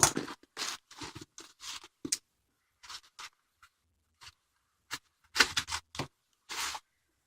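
A sharp knife cutting open a shipping package in a series of short, irregular scratchy strokes. There is a burst of strokes at the start, a sparser stretch in the middle, and another run of cuts about five seconds in.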